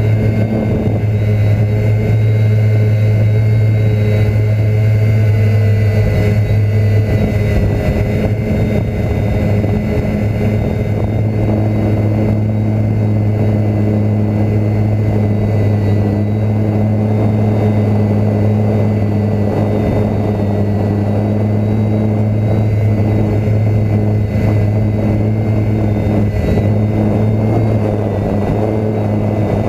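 DJI F450 quadcopter's electric motors and propellers, heard from the craft itself in flight: a steady hum with small shifts in pitch over a rush of noise.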